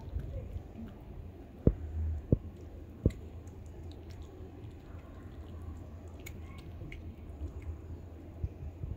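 A cat chewing wet food chunks, with a few sharp clicks in the first three seconds over a low steady rumble.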